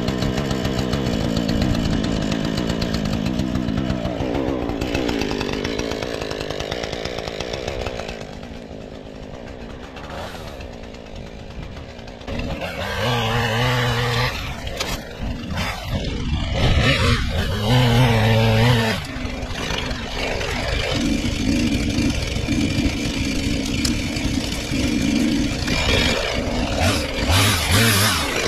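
Chainsaw cutting through scrub and saplings, revving up to full throttle in repeated bursts and dropping back to idle between cuts.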